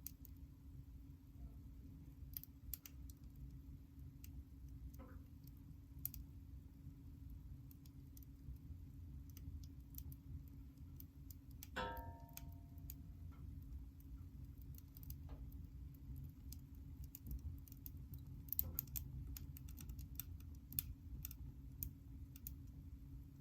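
Firewood burning in a fireplace, crackling with scattered, irregular sharp pops over a low steady rumble.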